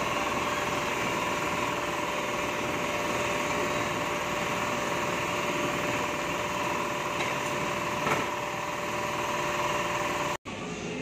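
Steady workshop machinery hum with a faint constant whine. A single short knock comes about eight seconds in.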